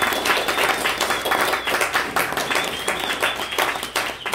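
Audience clapping, dense and irregular, with a thin high tone held over it that wavers slightly.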